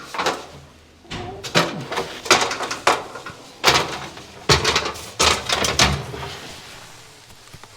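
Clatter and knocks of a cupboard door being opened and things inside being moved, in several bursts over about five seconds.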